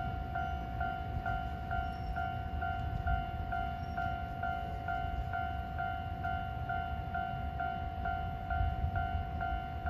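Electronic railway level-crossing warning bell ringing steadily, about two strokes a second, over a low rumble.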